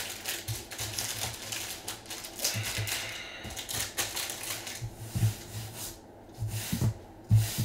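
Foil-wrapped trading card packs crinkling as gloved hands handle and shuffle them, with a few soft thumps near the end as the packs are set down in a stack.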